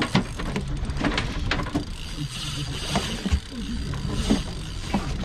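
Spinning fishing reel working as a hooked ladyfish is brought in: rapid irregular mechanical clicking from the reel's gears and drag.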